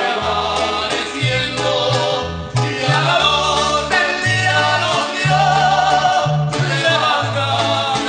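Mariachi band playing with singing, over a bass line that moves in steady steps.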